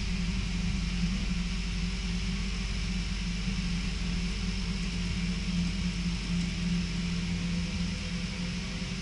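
Electric passenger train running at speed, heard from inside the carriage: a steady rumble of wheels on the rails with a constant low hum.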